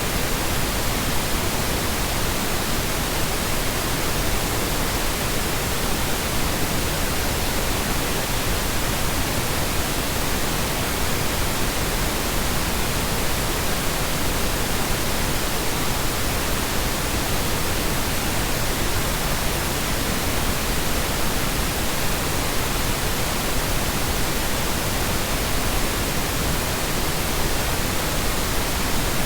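Steady synthetic Brownian noise: an even, unchanging rush with no tones, rhythm or changes in level.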